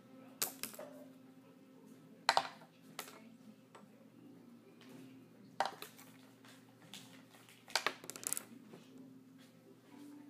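A paintbrush being tossed and landing against a small bottle and the tabletop: a handful of sharp clattering knocks, the loudest a couple of seconds in and a quick rattling cluster about eight seconds in.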